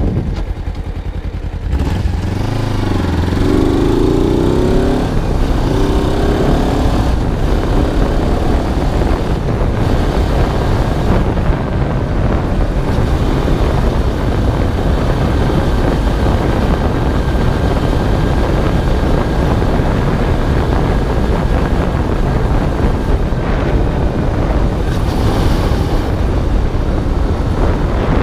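Kawasaki ZZR250 motorcycle fitted with a Ninja 250R parallel-twin engine, heard from the rider's seat. It pulls through the gears, rising in pitch twice a couple of seconds in, then runs steadily on the road under heavy wind noise on the microphone.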